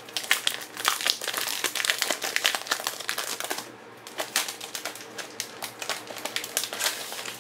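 A vinyl skin sheet on its paper backing being slid out of a clear plastic sleeve and handled: a busy run of crinkling and rustling in quick little ticks for about the first three and a half seconds, then sparser rustles.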